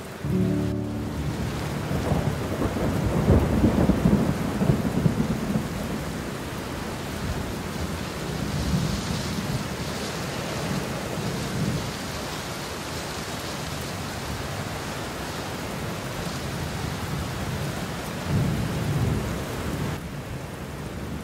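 Steady heavy rain with rolling thunder: a long rumble a couple of seconds in and another near the end.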